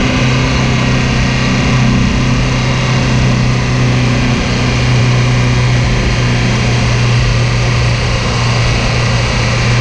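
A 4x4's engine running at steady revs under load while wading through deep river water, with the bow wave rushing and splashing over the bonnet. The sound starts and stops abruptly.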